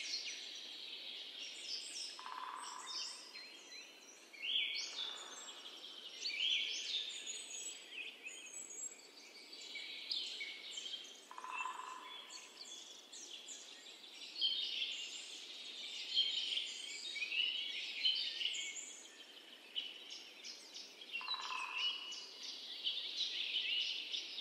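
Songbird chorus from a nature sound-effect track: many small birds chirping and trilling over a faint background hiss, with a lower call three times, about every nine seconds.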